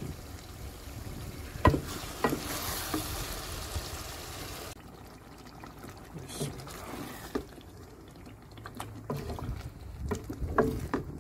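Wooden spatula stirring meat in gravy in an aluminium pot on the stove: wet sloshing and bubbling of the liquid, with a few sharp knocks of the spatula against the pot, two near the start and a cluster near the end.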